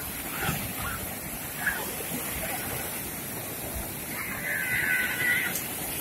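Rough sea surf breaking and washing steadily over a sandy shore, waves driven up by a small storm. A little after four seconds in, a brief high-pitched sound lasts about a second.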